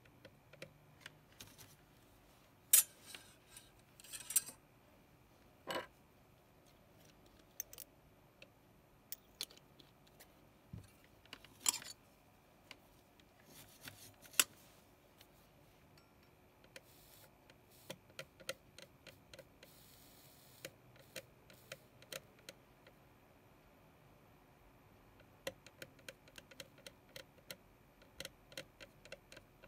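Faint, scattered small clicks, taps and light scrapes from hand-soldering a TSSOP chip with a soldering iron, as the tip works along the pins and the board is handled. A few sharper knocks stand out, with a brief burst of scraping about halfway through as the iron tip is cleaned in a brass-wool tip cleaner.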